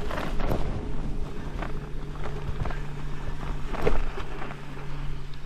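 NS Bikes RAG+ 2 gravel bike, loaded with bikepacking bags, riding over a rough dirt and stone track: tyres crunching and the bike rattling, with frequent short knocks, the loudest about four seconds in, over a steady low hum.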